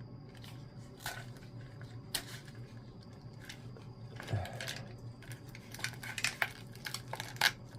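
Light, scattered clicks and small clinks of hands working loose a motorcycle's wiring harness and its plastic connectors, more frequent in the second half, over a steady low hum.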